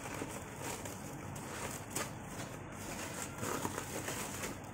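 Honeycomb kraft-paper packing wrap rustling and crinkling as hands pull it out of a cardboard box, with a few sharper crackles.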